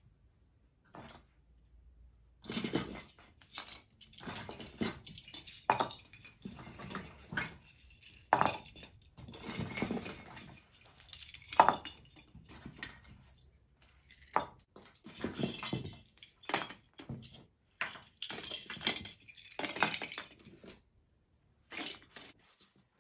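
Hard objects clinking and knocking as they are handled by hand: an irregular series of sharp taps and clinks, with softer handling noise between them, starting about two and a half seconds in.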